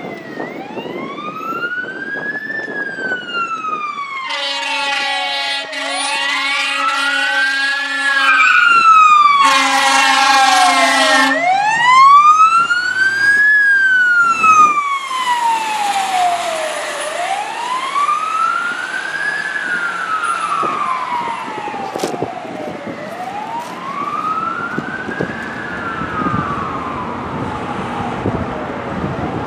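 Fire engine responding: its siren wails, rising and falling slowly about every five and a half seconds, and its air horn gives two long blasts over it, about four and nine seconds in.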